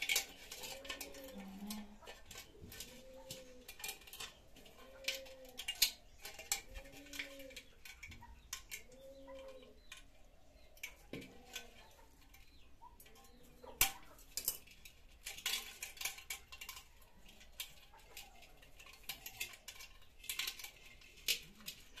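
Steel wire being wrapped and twisted around the neck of a terracotta pot by hand, with scattered sharp clicks and scrapes of wire against clay. A faint, low rising-and-falling tone repeats about once a second through the first half.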